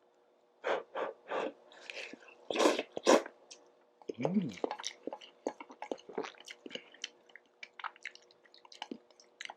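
Instant ramen noodles slurped in a run of five or six loud pulls over the first three seconds, then chewed with many small wet mouth clicks.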